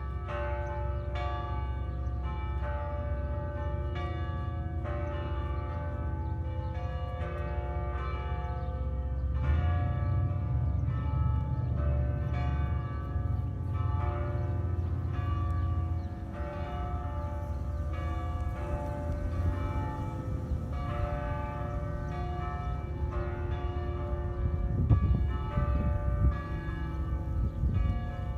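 Cathedral bells ringing a continuous peal, a strike roughly every half second with the tones ringing on between strikes. A low rumble runs underneath for a few seconds about ten seconds in.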